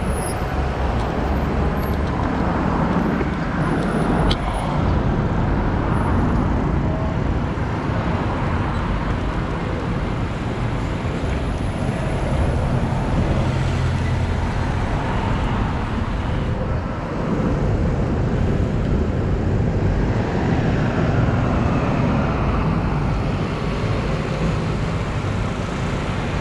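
Steady road traffic noise with a constant low rumble and no clear single event.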